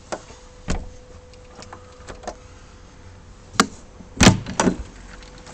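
A door being handled: a few light clicks and knocks, then a cluster of louder knocks and a thud a little past four seconds in.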